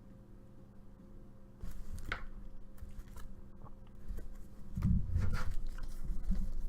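Baseball trading cards handled by hand: faint rustling and light clicks of cards being slid and flipped, starting about a second and a half in, with a few dull knocks around five seconds in.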